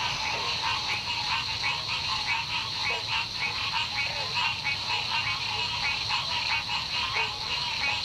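A chorus of frogs calling, many short calls repeating and overlapping, over a steady high-pitched drone.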